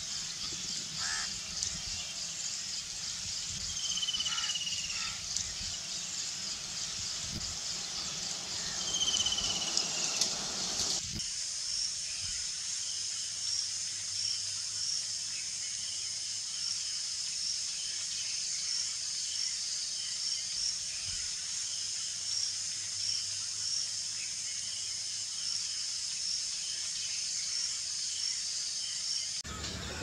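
Outdoor wetland ambience: a steady high insect hiss with two short falling bird calls. About a third of the way in it changes suddenly to a steadier high insect chorus with a chirp that repeats at an even pace.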